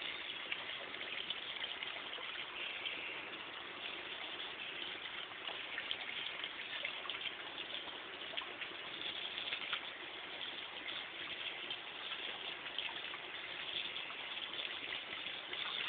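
Garden hose spray nozzle spraying water in a steady hiss.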